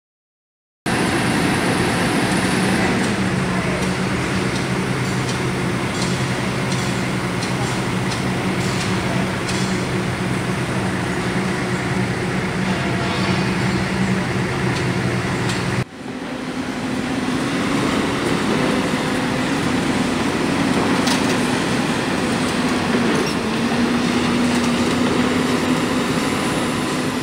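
Heavy diesel machinery running steadily: a Cat hydraulic excavator working beside a Hino box truck stuck in mud, with a few light clanks in the first half. The sound starts about a second in, drops off abruptly a little past halfway, and an engine drone at a slightly higher steady pitch picks up again.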